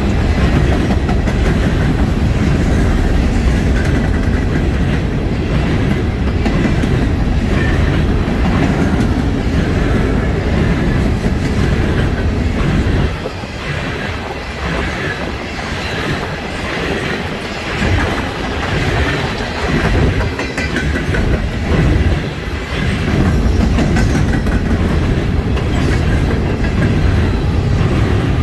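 Norfolk Southern coal hopper cars of a freight train rolling past close by, a steady heavy rumble with the wheels clacking over the rail joints. The noise drops a little for several seconds in the middle, then returns to full strength.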